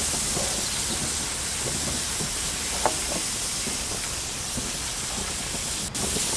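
Sugared fig slices sizzling steadily in their bubbling juice on a PTFE non-stick barbecue grill mat, with one faint tap about three seconds in and a short break near the end.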